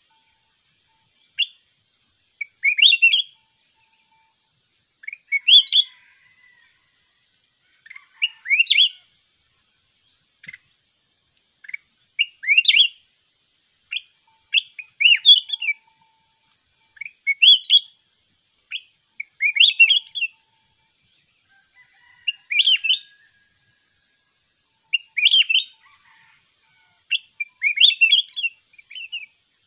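Caged bulbul singing short, sweet phrases of quick rising notes, one phrase every two to three seconds, in singing-contest style.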